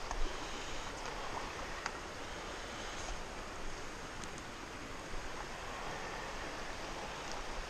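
Steady rush of a shallow river flowing over a rocky bed, with a few faint clicks.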